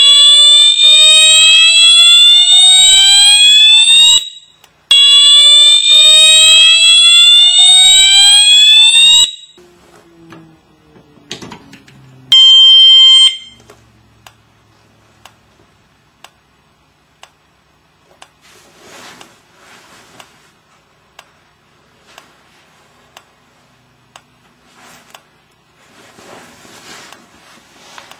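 Siemens U-MMT-MCS multi-tone fire alarm horn sounding a whoop tone: two loud sweeps rising in pitch over about four seconds each, with a short pause between them. It stops about nine seconds in. A short steady beep follows a few seconds later, and then only faint handling noises.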